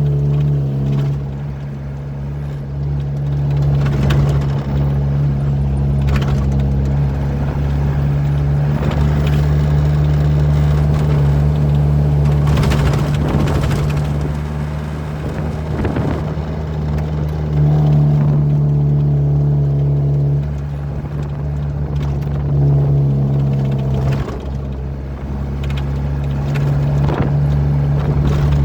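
Truck's diesel engine running steadily while driving, with road noise and a few brief rushes of noise; the engine note eases off briefly twice.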